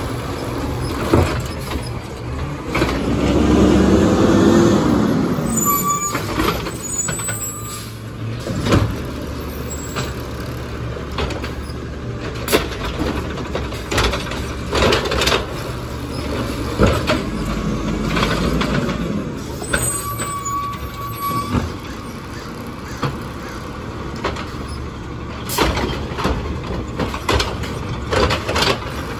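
Natural-gas Peterbilt 320 automated side-loader garbage truck running at the curb while its hydraulic arm lifts and dumps carts. The hydraulics whine loudly with a rising pitch about three to five seconds in, and sharp clanks and knocks come throughout as the carts are shaken out and set back down.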